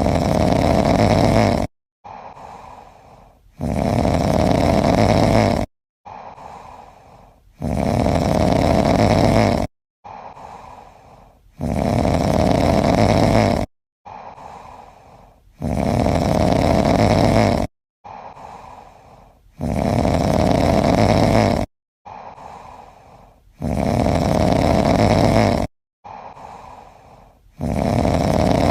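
Loud snoring in an identical cycle about every four seconds: a long, loud rumbling snore, then a quieter breath out, then a brief cut to dead silence. This looks like a looped snoring track.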